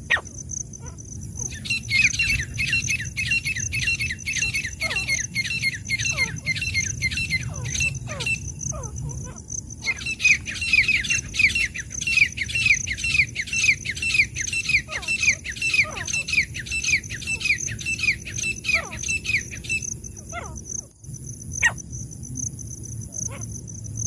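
Grey francolins calling: a long run of rapid, repeated whistled notes, each dipping in pitch, then a short pause and a second long run that stops near the end.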